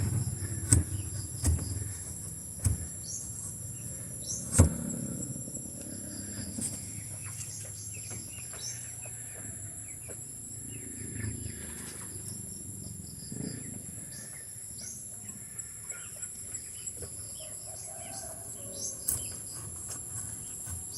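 Outdoor ambience: a steady high insect drone with scattered bird chirps. A few sharp knocks fall in the first few seconds, the loudest about four and a half seconds in.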